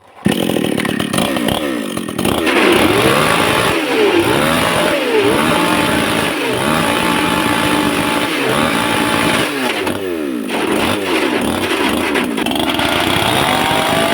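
Chainsaw engine comes in abruptly and is revved up and down over and over. Near the end it settles into a steady high-pitched run.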